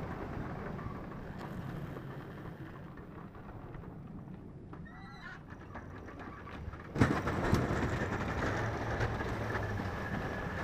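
Chevrolet Silverado 2500HD pickup with a Western MVP3 V-plow, its engine running as it works. It is faint in the middle, then gets suddenly louder about seven seconds in as the plow blade starts pushing snow.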